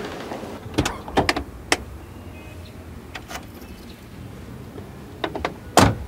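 A handful of short, sharp clicks and knocks over a low steady hum, the loudest knock near the end.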